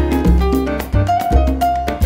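Latin jazz big band playing a mambo, with a strong bass line under evenly spaced percussion and held pitched notes.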